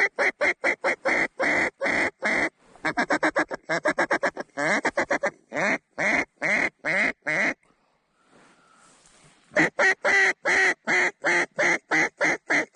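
Mallard duck call blown in strings of loud, evenly spaced quacks, with a quick run of short quacks a few seconds in and a pause of about two seconds before another string.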